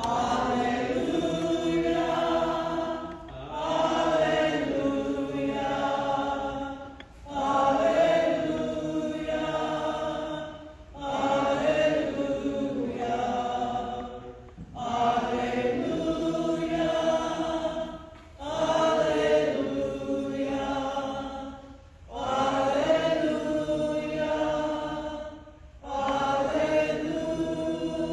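Singing of the Gospel Acclamation (Alleluia) at Mass, a chant-like melody sung in repeated phrases about four seconds long with short breaths between them.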